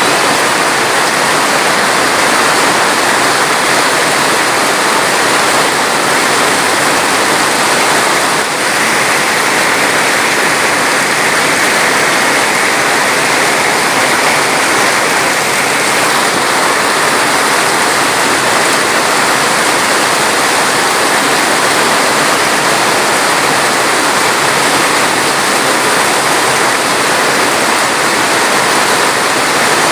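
Steady, unbroken rush of water, like a waterfall or fast stream.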